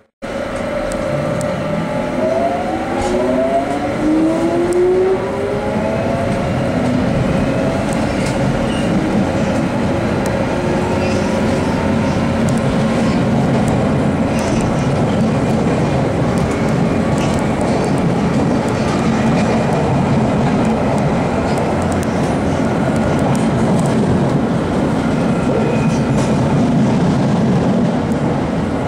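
Jubilee line tube train, 1996 stock, pulling away, its traction motors whining up in pitch over the first several seconds. It then runs at speed with a steady rumble of wheels on track.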